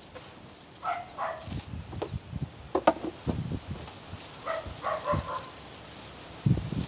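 Knocks, rustles and a sharp click as a plastic-wrapped teleprompter part is lifted out of its cardboard box and set down. A dog barks in short bursts about a second in and again near five seconds.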